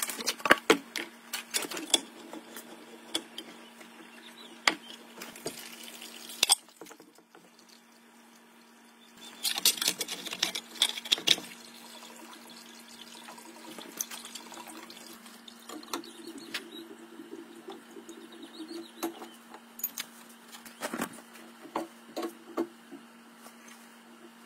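Plumbing work on copper water supply lines: scattered clinks and knocks of tools and pipe, with water running and trickling into a plastic basin, over a steady low hum.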